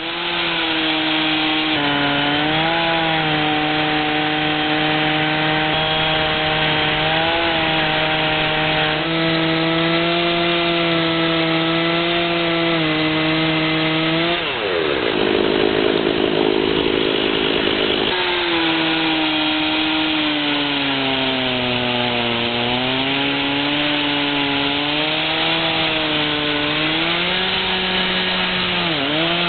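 Chainsaw at full throttle under load in an Alaskan chainsaw mill, ripping lengthwise through a cedar log. Its engine note sags and recovers as the cut goes on, and for a few seconds near the middle the sound turns rougher before the steady note returns.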